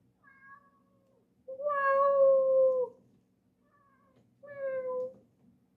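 Kitten meowing three times: a faint short meow, then a long, loud meow of about a second and a half, then a shorter meow near the end, each sliding slightly down in pitch as it ends.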